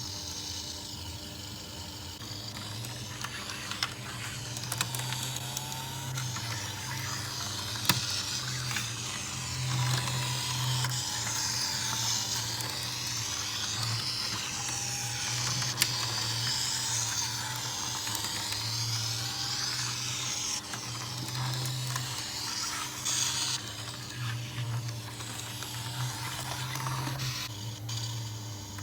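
Tomica 4D Toyota 86 toy car playing its recorded engine sound through a tiny built-in speaker, a thin, buzzy engine note revving up and down over and over. Under it runs a steady low buzz, and there are a few sharp clicks.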